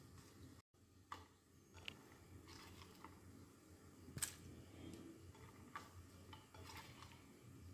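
Faint, scattered light clicks and taps as chopped vegetables, curry leaves, green chillies and ginger are dropped into an empty clay cooking pot, the sharpest click about four seconds in. There is a moment of dead silence just under a second in.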